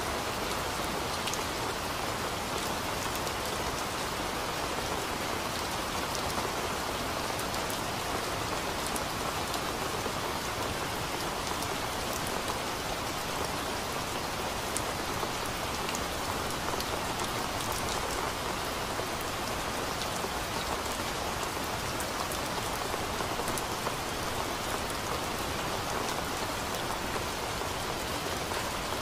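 Steady rain falling on trees: an even, unbroken hiss dotted with countless fine drop ticks.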